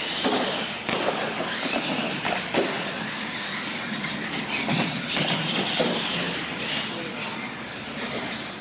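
Radio-controlled monster trucks racing, their electric motors and gears whining up and down with the throttle. Several sharp knocks in the first few seconds as the trucks hit the launch ramps and land.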